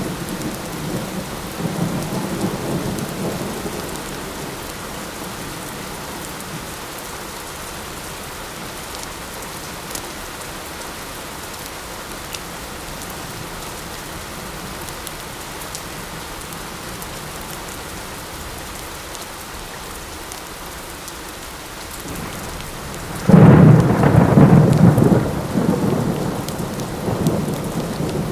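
Steady light rain with thunder: a soft low rumble in the first few seconds, then a much louder thunderclap about 23 seconds in that rolls on and fades over several seconds.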